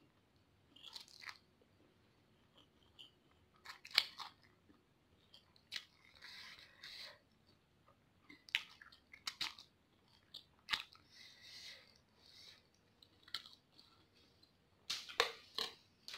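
Close-up mouth sounds of a person eating instant noodles from a fork: chewing and slurping, with scattered sharp clicks.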